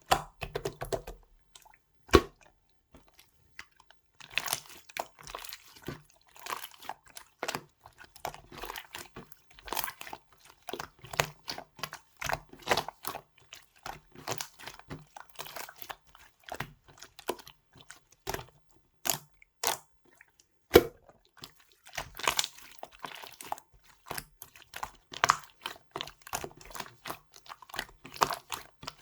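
Semi-transparent pink slime being squished and stretched by hand, giving irregular runs of small crackling clicks and pops, with a couple of louder single snaps.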